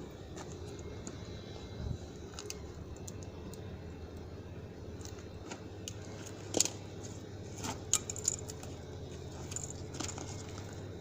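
Scattered clicks and light clinks of small hard objects being handled, the sharpest about six and a half seconds in and a few more around eight seconds, over a steady low hum.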